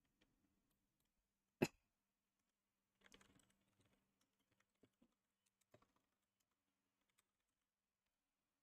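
Faint typing on a computer keyboard: scattered keystrokes, with one sharper, louder click about a second and a half in and a short run of keys about three seconds in.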